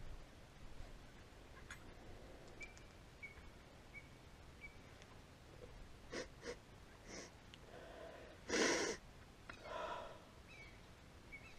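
A series of heavy breaths through a gas mask as the wearer pulls it off his face, the loudest a sharp exhale about eight and a half seconds in.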